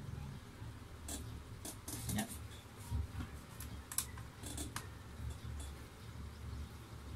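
Small precision screwdriver working screws out of a laptop's plastic bottom cover: irregular small clicks and ticks of the bit and screws, over a low steady hum.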